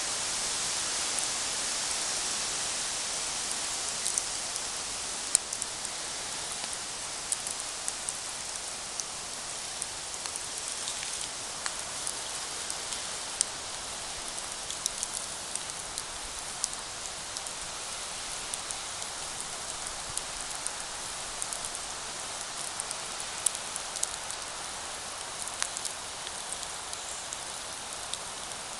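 Campfire burning: a steady hiss with frequent sharp crackles and pops at irregular intervals, the hiss strongest in the first few seconds.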